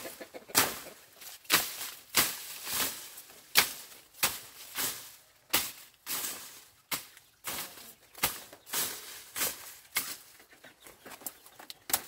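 Machete slashing through leafy stalks and large leaves, an irregular run of sharp swishing strokes about every half second, with leaves rustling between them.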